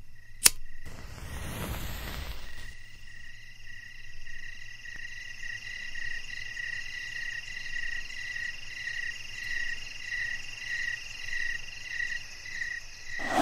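Night chorus of frogs calling in a steady pulsing rhythm, about one and a half pulses a second, over a continuous insect trill. Near the start there is a single sharp click, followed by a brief rushing whoosh.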